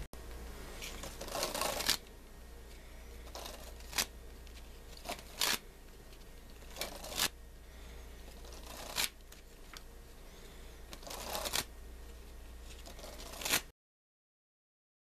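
A string of short swishes and rustles, about eight of them, several swelling up and then cutting off sharply. Near the end the sound drops to complete silence.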